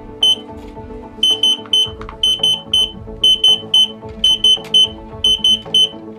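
Basement Sentry backup sump pump controller's alarm beeping: short high-pitched beeps, mostly in quick sets of three, about once a second. It is the audible alert that sounds until the battery leads are properly connected. Soft background music underneath.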